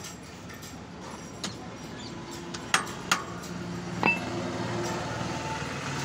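Sharp metallic clinks, four of them, from a bicycle's crank arm and pedal being handled and turned by hand, over a steady low hum that comes in about two seconds in.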